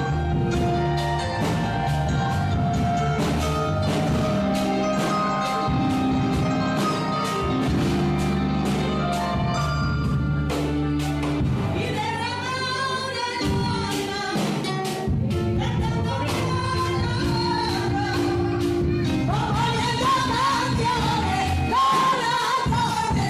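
Worship music at a church service: a sung melody with vibrato over instrumental accompaniment with a steady beat, the voice coming forward about halfway through and again near the end.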